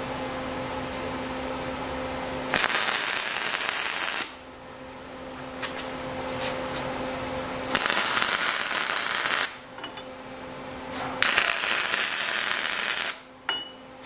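Arc welding on steel: three crackling welds of about two seconds each, starting about 2.5, 7.5 and 11 seconds in. A steady low hum runs in the pauses between them.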